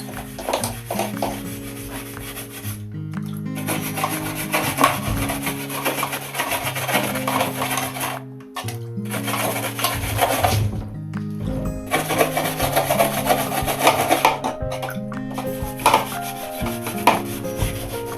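Background music with a steadily changing bass and chord line, over a rough rubbing or scrubbing noise that comes and goes. Everything drops out briefly a few times.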